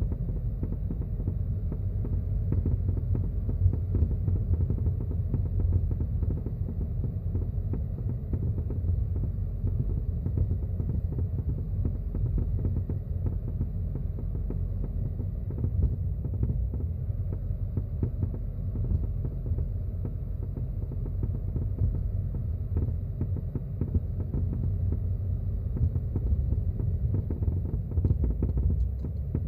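Low road and drivetrain rumble inside the cabin of a Subaru WRX S4 at low speed, heard from the passenger footwell, with irregular knocking and cracking clunks from around the left front. The clunks are an abnormal noise the owner reports at about 20 to 40 km/h, driving straight or steering left, but not at full right lock.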